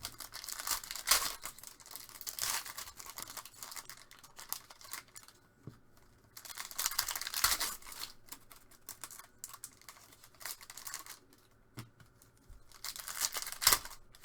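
Trading-card pack wrappers being ripped open by hand, the wrappers crinkling, in three louder bouts of tearing near the start, in the middle and near the end.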